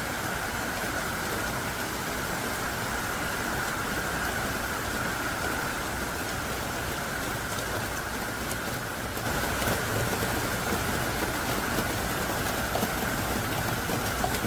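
Heavy rain falling hard and steadily, a dense even hiss of drops on surfaces, growing a little louder about two-thirds of the way through.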